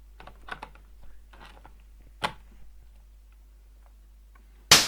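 Light scattered clicks and ticks, a sharper knock about two seconds in, and a loud short thump near the end.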